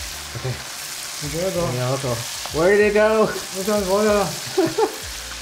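Chicken wing pieces deep-frying in hot oil in a pot, a steady sizzle during the second fry that crisps the skin. A voice speaks a few short words over it between about one and five seconds in.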